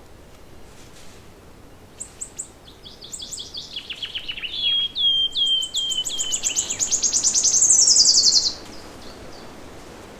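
A songbird sings one long song of rapid repeated high notes, starting about two seconds in, growing louder and speeding into a fast trill that stops abruptly near the end, over a steady hiss of forest background noise.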